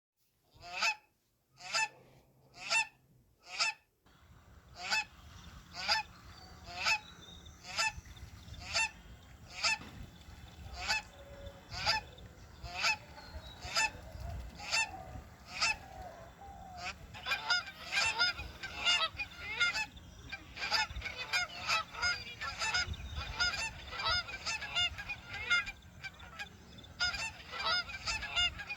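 Geese honking, one call about every second. The first few calls stand alone, then a low background rumble comes in. From about halfway through, several birds call over one another.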